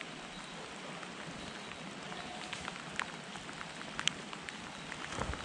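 Footsteps wading through dry heather and scrub: a steady swishing of stems brushing against legs, with scattered small twig snaps and a couple of heavier footfalls near the end.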